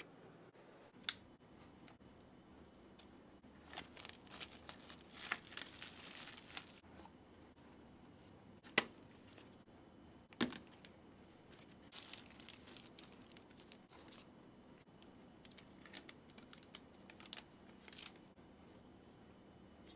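Smartphone unboxing handling: plastic wrap and packaging crinkling and tearing, with cardboard box parts being handled. Sharp taps come about a second in and twice more around the middle.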